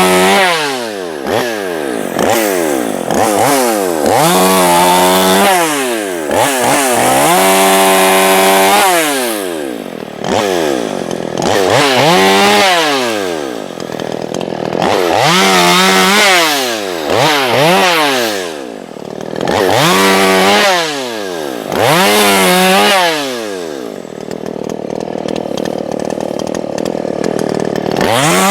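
Small Craftsman two-stroke gas chainsaw, its throttle opened and released over and over: the engine holds at high revs for a second or two, falls away and revs up again every few seconds, settling lower near the end.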